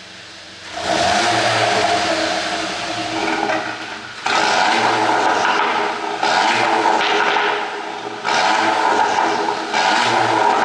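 2015 VW Golf GTI Mk7's turbocharged 2.0-litre four-cylinder, on a pop-and-crackle ECU tune, revved hard again and again, with short dips between the revs.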